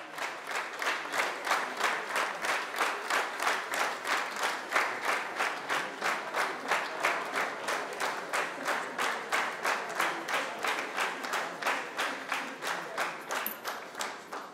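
Audience clapping together in a steady rhythm, about three to four claps a second, dying away near the end.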